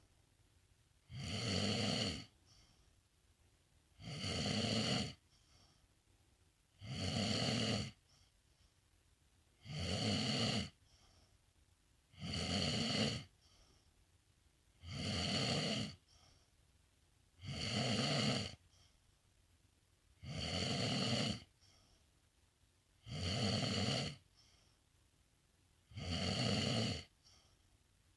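A sleeping pet snoring in a slow, even rhythm: ten snores, each about a second long, one roughly every three seconds.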